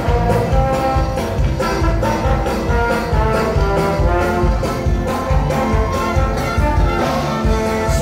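Brass band music: trumpets and trombones playing held notes over a steady low beat.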